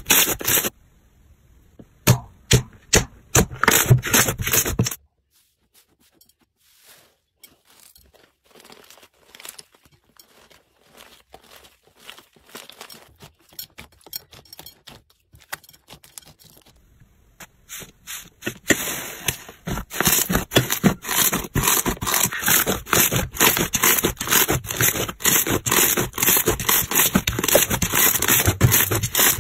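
Slime being pressed and squeezed by hands, making sticky pops and crackles: loud clicking pops for the first five seconds, faint, sparse squishing through the middle, then a dense run of crackling pops from about two-thirds of the way in.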